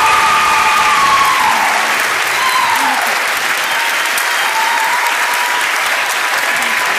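A large audience applauding steadily at the end of a song, with the last held sung note fading out in the first second or two.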